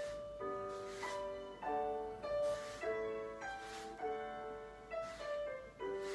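Piano music for a ballet barre exercise, notes and chords struck to a steady beat.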